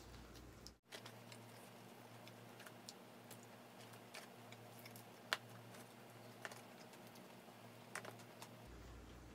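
Faint, scattered clicks and small crackles of eating: fried chicken being chewed and picked apart by hand, over near-silent room tone.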